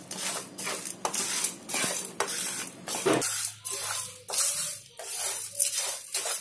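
Wooden spatula stirring dry lentils, seeds and coconut pieces around a nonstick pan as they dry-roast on low heat: a rhythmic rattling scrape, about two to three strokes a second.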